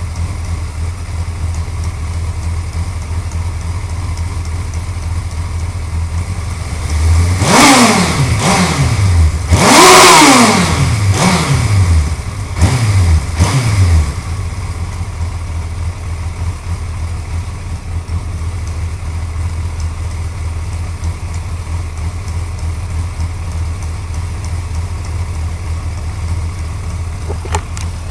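Suzuki GSX-R1100 inline-four engine idling, then revved with a series of quick throttle blips for several seconds before settling back to a steady idle.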